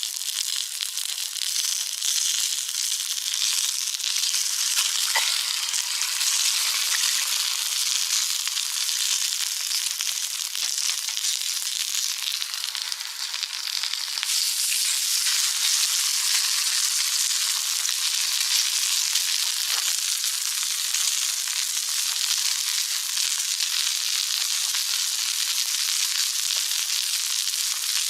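Food sizzling steadily in an iron frying pan, with small scattered crackles, growing a little louder about halfway through.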